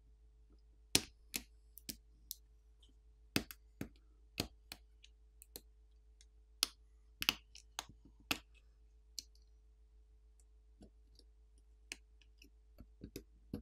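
Plastic pry tool clicking against a smartphone's flex-cable connectors and metal shields as the flex cables are popped off the subboard: a string of sharp, irregular clicks, thicker in the first half and sparser later.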